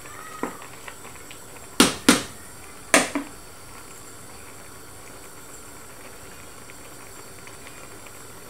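Wooden spoon knocked against the rim of a stainless steel cooking pot: three sharp knocks that ring briefly, two in quick succession and a third about a second later. Under them the pot of greens and vegetables boils with a steady hiss.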